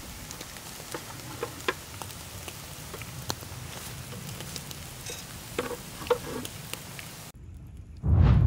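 Catfish kebabs on skewers sizzling over hot charcoal, with scattered small crackles and pops. The sizzling cuts off about seven seconds in, and a loud, deep boom follows near the end.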